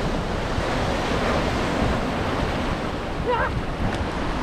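Sea surf breaking and washing over a flat rock platform, with wind rumbling on the microphone.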